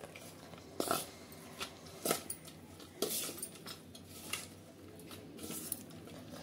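Metal spoon clinking and scraping against a stainless steel bowl while mixing grated raw potato with rice flour and spices, with sharp clinks about once a second.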